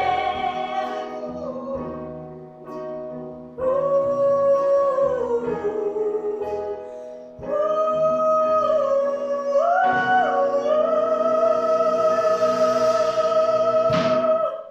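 Female vocalist singing a slow ballad over piano, acoustic guitar and upright bass. After a few short phrases she holds one long final note with vibrato, and the song stops just before the end.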